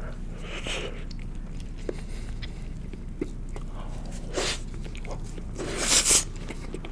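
Close-miked eating sounds of salmon sushi being chewed: small wet mouth clicks, with short louder noisy bursts about four seconds in and again near six seconds, over a steady low hum.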